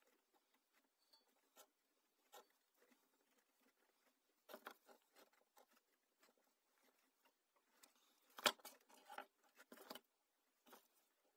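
Faint rustling and small clicks of electrical wires and a plug being handled and twisted together by hand, with a sharper cluster of clicks and knocks near the end.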